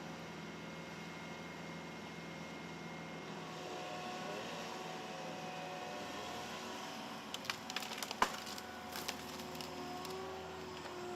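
Wood cracking and splintering as a tree is cut or felled by a tree-felling machine: a quick cluster of sharp snaps from about seven seconds in, the loudest near eight seconds, over the machine's steady low hum.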